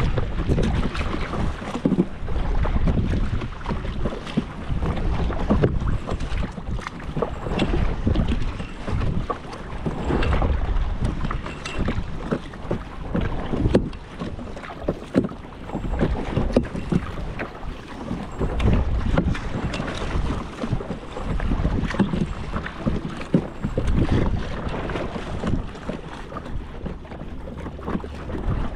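Kayak paddling: paddle blades dipping and splashing in the water in irregular strokes, with wind buffeting the microphone in a steady low rumble.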